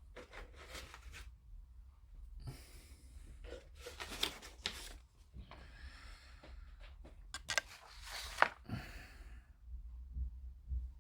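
Quiet handling noises: a few soft rustles and several light clicks and taps as the model kit's instruction sheet and parts are handled.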